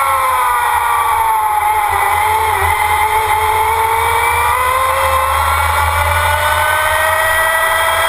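Formula Student race car under way at speed, its drivetrain note dropping in pitch as it slows for a corner about two to three seconds in, then rising steadily as it accelerates out, over a steady low rumble.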